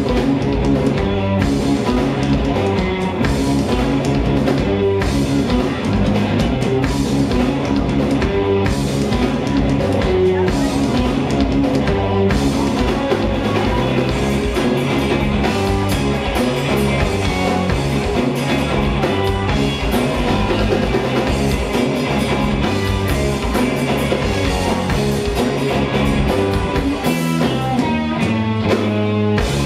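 Rock band playing live: electric guitars and a drum kit in a loud, steady instrumental passage.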